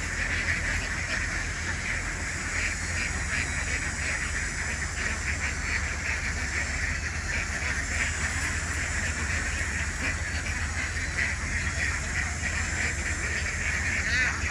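A large flock of domestic ducks quacking continuously, many calls overlapping into a steady chatter, with a steady low rumble underneath.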